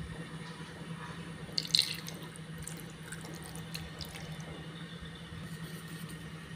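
Fish sauce splashing and dripping onto raw goatfish in a pot, with a short splash about two seconds in and a few light ticks after it, over a steady low hum.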